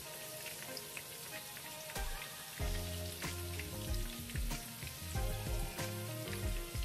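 Hot oil sizzling and crackling with scattered small pops as prawn and bean sprout fritters deep-fry in a pan. Background music with low bass notes plays along, loudest in the second half.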